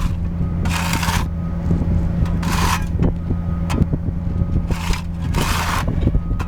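Diesel engine of a Vögele Super 1800-3 asphalt paver running steadily at work. Short bursts of hissing break in every second or two.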